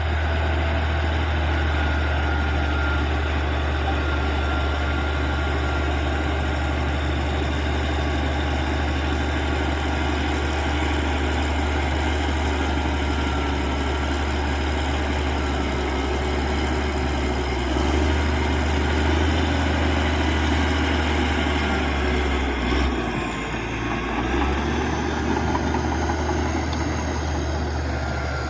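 Caterpillar D6G bulldozer's six-cylinder diesel engine running steadily with a deep hum. The low hum dips briefly about three-quarters of the way through, then picks up again.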